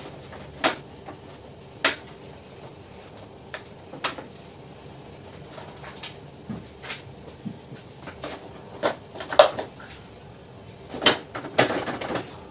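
Scattered plastic clicks and knocks as a scooter's plastic body panel is worked loose and handled, with a cluster of louder knocks near the end.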